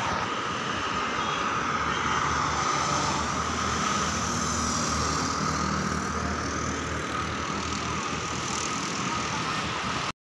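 Steady road traffic noise from motorbikes, scooters and cars moving along a main road.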